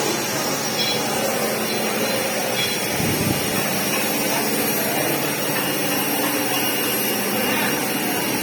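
Steady, even machine noise with no clear rhythm, and a brief low thud about three seconds in.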